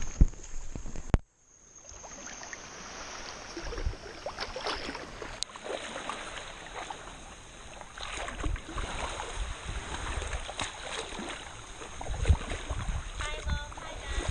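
Shallow seawater sloshing and splashing around a camera carried at the surface and then waded out through the shallows, with irregular splashes from the steps. The sound breaks off sharply about a second in, then the water resumes.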